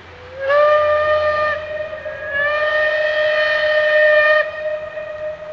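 Steam locomotive's whistle blown twice: a short blast of about a second, then a longer one of about two seconds. Each blast slides up in pitch as it opens.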